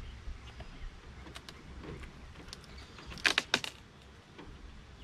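A quick cluster of four or five sharp clicks about three seconds in, with a few fainter ticks earlier: hard beekeeping equipment being handled and knocked at an open hive.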